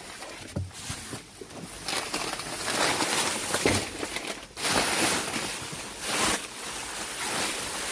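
Plastic bags rustling and crinkling as they are handled and pushed aside, in irregular bursts.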